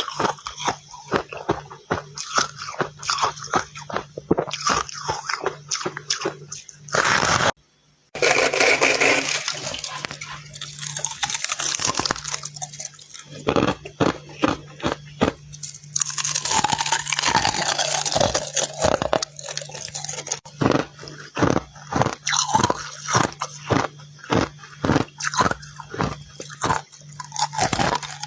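Close-up biting and chewing of crunchy freezer frost: a quick run of crisp crunches, with longer dense stretches of grinding crunch in the middle. The sound cuts out briefly about a quarter of the way in, and a faint steady hum lies underneath.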